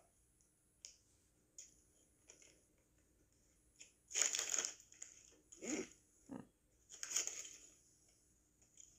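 Foil chip bag of Doritos crinkling in the hands as it is turned over and handled, in a few short bursts with the loudest about four seconds in.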